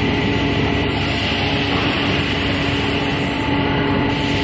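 Ceramic honeycomb extrusion and cutting line running: a steady mechanical drone with several constant humming tones.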